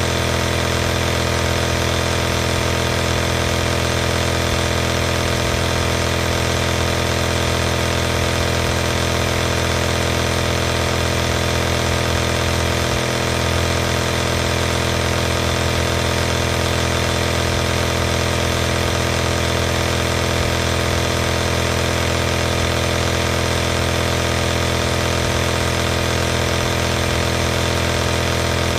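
Compressor nebulizer running continuously: a steady motor hum with an even hiss of air over it, unchanging throughout.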